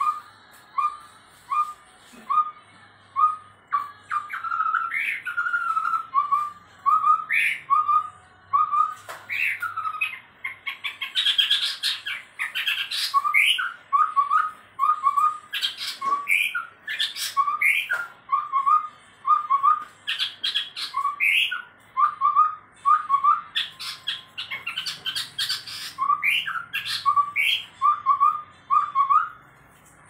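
Chestnut-rumped babbler (tepus tunggir merah) singing. It starts with a string of short whistled notes at a little under two a second; from about four seconds in it adds higher rising notes and fast chattering phrases, with brief pauses between bouts.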